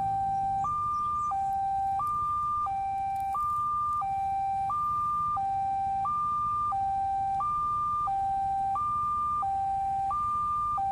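Railway level-crossing warning alarm sounding a steady hi-lo two-tone signal, switching between a higher and a lower tone about every two-thirds of a second. It is the warning that a train is approaching the crossing.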